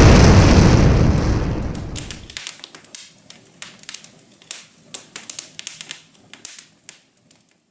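Explosion sound effect rumbling and dying away over about two seconds, then a scattered crackle of small pops like burning embers.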